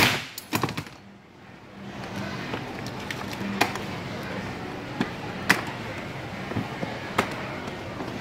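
A single loud, sharp bang with a short ring-out, followed about half a second later by two or three smaller knocks, then scattered light clicks and knocks over a low background hum.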